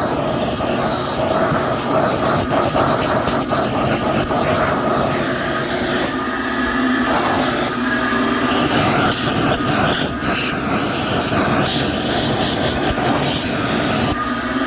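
Shop vac running steadily, its hose sucking dust from a vacuum cleaner's dust-cup filter, with a rushing-air sound that changes texture now and then as the nozzle moves.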